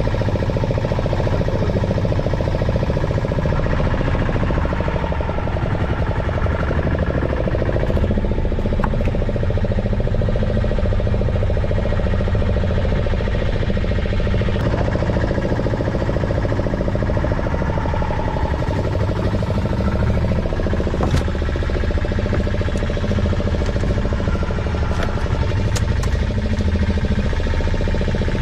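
Fishing boat's engine running steadily at a constant speed.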